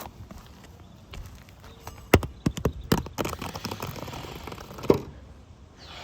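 Knocks and scuffs on an asphalt shingle roof, a cluster of sharp knocks about two to three seconds in and another near the end.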